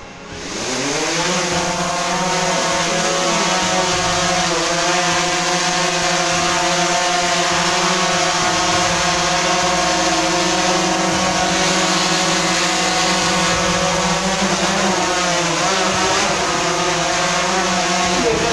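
DJI Phantom 3 Professional quadcopter's motors and propellers spinning up for take-off, then a steady, even whine while it flies. The pitch wavers up and down a little near the end.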